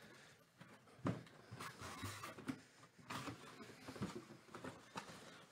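Faint scrapes, taps and rustles of a cardboard helmet box being handled and opened, with a sharper knock about a second in and another about three seconds in.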